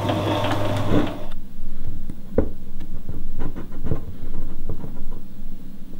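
A metal spoon stirring thick, sticky flaxseed urbech in a ceramic bowl: wet squelching strokes with irregular clicks and scrapes of the spoon against the bowl. This is preceded by a brief loud rush of noise with a low hum that cuts off about a second in.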